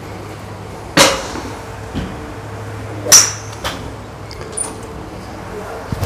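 Golf clubs striking balls off driving-range mats: a handful of sharp cracks a second or two apart, the loudest about three seconds in, over a low steady hum.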